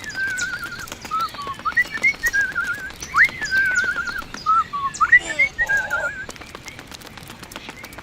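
A songbird singing whistled phrases, each a quick rising note followed by a wavering trill, three times over, stopping about six seconds in. Faint clicks run underneath.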